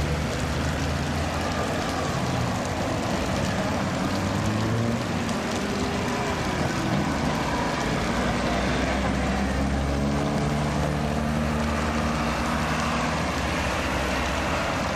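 Heritage electric tram running along street track toward and past, a steady rumble with a low motor hum that shifts in pitch.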